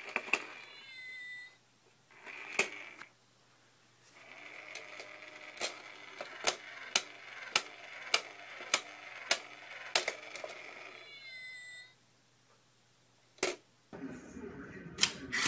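A cat meowing at the start and again near the end. In between, a steady whine is broken by sharp clicks a little under twice a second while the cat paws into a small cardboard box toy.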